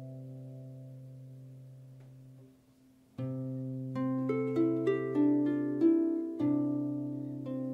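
Solo pedal harp playing: a chord rings and fades into a short pause, then a low chord is plucked about three seconds in, followed by a run of single plucked notes and more ringing chords.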